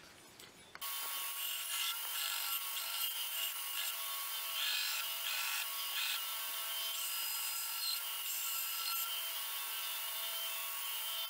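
Belt grinder running with a steady whine and hiss that comes in suddenly about a second in, as a forged steel knife blade is held against the abrasive belt; several short, harsher stretches of grinding come between about two and six seconds in.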